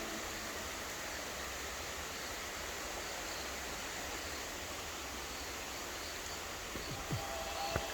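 Steady, even hiss of rushing water.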